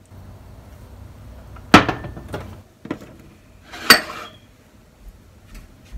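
Bottles and ceramic bowls being set down and moved on a glass-top stove: two sharp knocks about two seconds apart, with a lighter clink between them.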